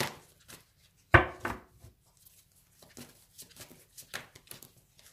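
A deck of tarot cards being handled on a table: one sharp thump about a second in, then light scattered clicks and taps as the cards are shuffled and drawn.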